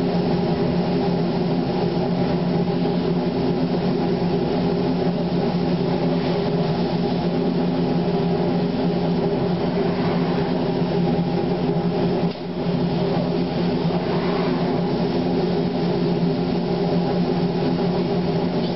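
Industrial machine running with a steady, even hum of several fixed tones; the sound dips briefly about twelve seconds in.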